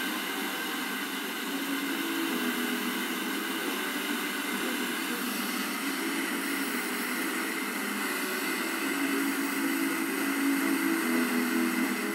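FM tuner on a weak, distant station at 98.7 MHz: a steady hiss of static with faint music coming through, a little stronger in the last few seconds. The signal is a long-distance pickup by tropospheric scatter.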